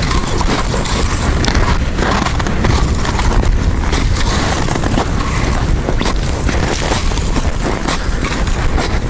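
Blizzard wind buffeting the microphone: a loud, steady rush of noise with heavy low buffeting and no break.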